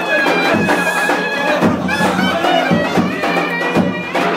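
A loud folk tune on a shrill reed wind instrument, played in long held high notes, with the voices of a packed crowd underneath.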